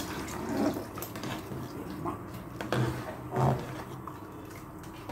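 Quiet kitchen handling sounds: a few light knocks and clinks of a glass or utensil against cookware at the stove.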